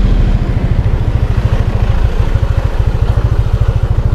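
Motor scooter riding along a dirt lane, its engine running under heavy wind buffeting on the microphone, which makes a steady, low rumble.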